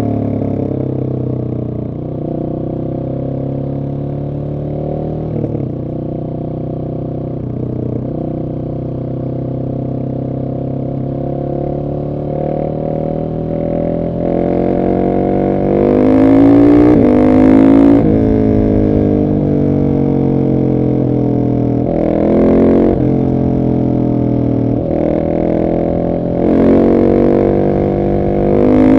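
Husqvarna 701 SM's single-cylinder engine through an Arrow exhaust, ridden at steady part throttle at first. From about halfway in it is accelerating hard, the revs climbing several times, each climb cut by an upshift that drops the pitch.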